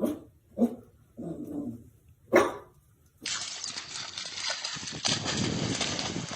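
A dog barking in a few short bursts, the sharpest near the middle. About halfway through, the sound cuts abruptly to a steady noise.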